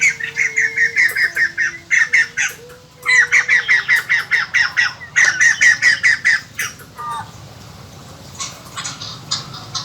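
White-crested laughingthrushes giving loud, chattering runs of rapid repeated notes, about eight a second, in several bursts that stop about seven seconds in, followed by quieter scattered calls.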